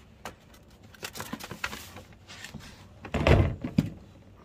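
Cardboard toy and game boxes being handled and lifted out of a plastic laundry basket: light rustles and knocks, then a heavy dull thump a little after three seconds in and a smaller knock just after.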